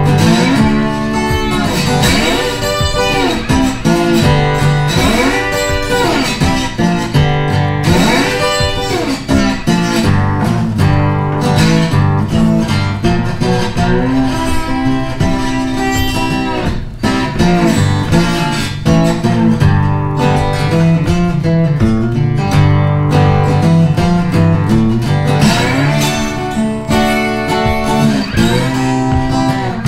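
Background music led by guitar, playing steadily.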